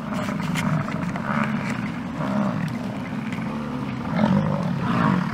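American bison bulls bellowing in the rut: deep, drawn-out roars from several animals, overlapping with no break.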